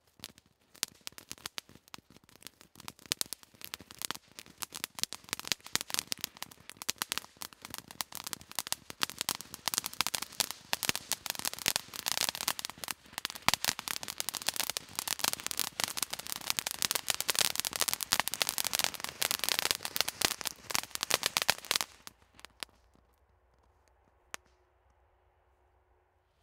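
Helix ground fountain firework spraying sparks with a dense crackle that builds up and keeps going for about twenty seconds, then cuts off suddenly.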